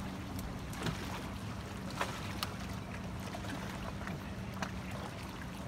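Lake water lapping and splashing at the shoreline as a person wades through it, with a few short sharp splashes, over a steady low hum.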